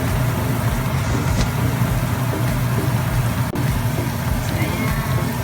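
Bananas frying in oil with sugar in a pan: a steady sizzle over a constant low hum.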